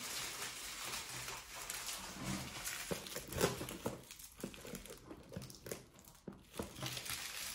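Faint crinkling of card-pack wrappers, with scattered small taps and clicks as they are handled and pushed into a cardboard box.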